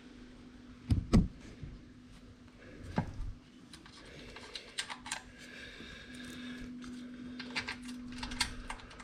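Small metal bolts clicking and clinking as they are handled around the pressure washer pump, with a couple of heavier knocks about a second in and again at three seconds, then a run of quick light clicks.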